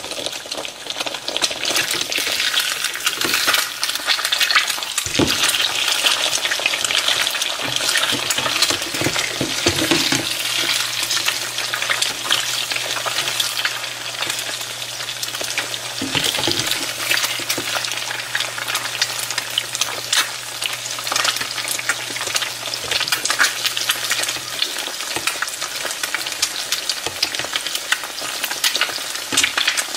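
Eggs frying in hot fat in a nonstick skillet: a steady crackling sizzle, with the scrape and knock of a slotted spatula working under the eggs to flip them. A low steady hum comes in about ten seconds in and stops about fifteen seconds later.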